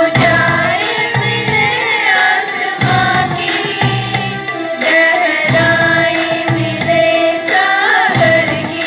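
A song with a voice singing over a held steady note and a regular hand-drum rhythm.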